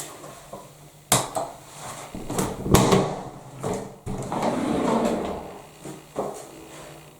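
A series of irregular knocks and clatters of objects being handled, with a longer scraping, rustling stretch from about four to five and a half seconds in.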